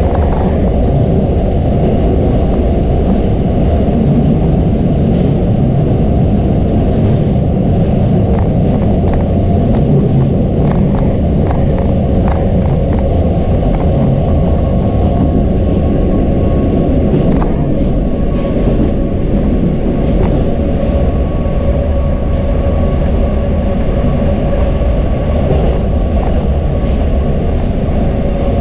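81-740/741 'Rusich' metro train running through a tunnel, heard from the driver's cab: a loud, steady rumble of wheels on rails. A faint steady whine joins about halfway through, and a few light clicks come in the first half.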